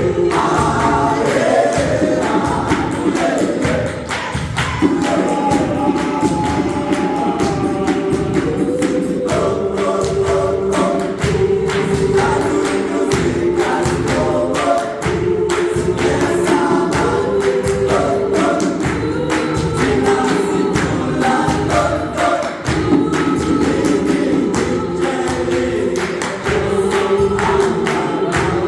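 Gospel choir singing in several voice parts over a fast, steady percussive beat.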